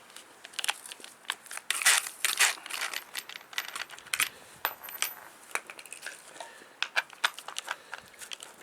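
Irregular light metallic clicks, clinks and short scrapes of steel folding-shovel parts being handled and worked by hand, with a couple of brief high rings about halfway through.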